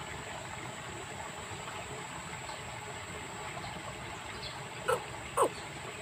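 Steady background of trickling water under a constant high-pitched tone, with two short animal calls, each falling in pitch, about five seconds in.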